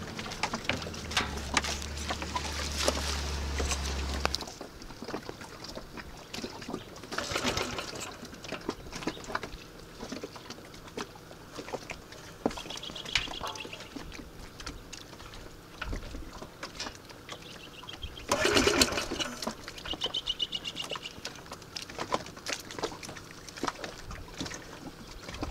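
Water slapping and lapping around a small open boat, with scattered knocks and rattles of gear being handled on board and a loud brief rush of noise about three-quarters through. A low steady hum stops about four seconds in, and a few short high chirping calls come twice.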